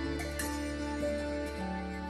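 Instrumental background music: a melody of held notes with a few plucked notes, over a steady low drone.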